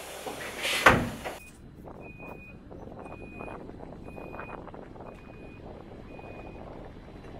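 A train's sliding door runs shut and slams with a loud thud about a second in. Then a regional train's door-closing warning beeps, a short high beep about once a second, five times, while its yellow double doors slide shut.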